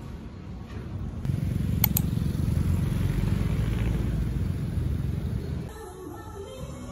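Street traffic with a motorcycle engine passing close by; its low rumble comes in suddenly about a second in, carries two short sharp ticks, and cuts off near the end to a much quieter background.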